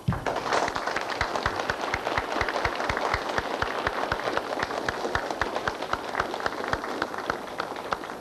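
Audience applauding: the clapping breaks out all at once and keeps up steadily, with one pair of hands clapping close by at about four claps a second.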